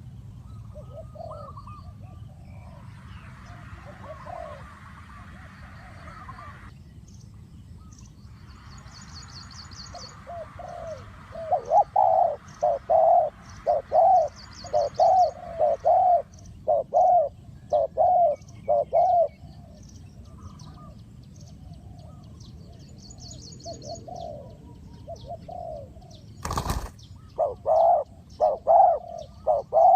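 Spotted dove cooing in repeated phrases, loudest from about a third of the way in and again near the end, with small birds chirping high and thin behind it. A single sharp knock comes about three-quarters of the way through.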